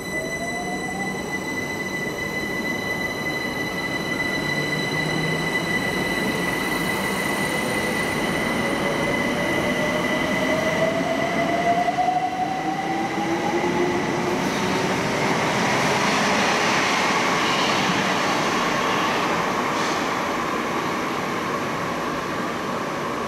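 London Overground Class 378 electric multiple unit pulling out of the platform. Its traction motors give a whine that rises in pitch as it gathers speed, and wheel and rail rumble grows as the carriages run past. A steady high tone fades out about halfway through.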